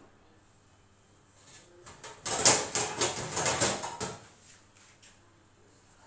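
Metal baking tray dragged out along the oven's side runners: a scraping, rattling run of metal on metal lasting about two seconds.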